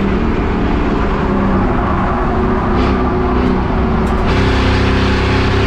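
Race car engines running steadily at speed, a continuous loud engine drone.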